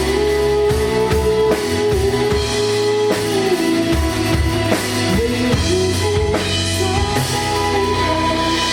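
Live band playing an instrumental passage of a song: drum kit with bass drum and snare, a bass line, and a sustained lead melody that bends up and down in pitch.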